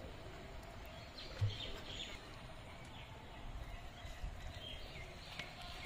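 Outdoor rural ambience with faint, scattered bird chirps and a single low thump about one and a half seconds in.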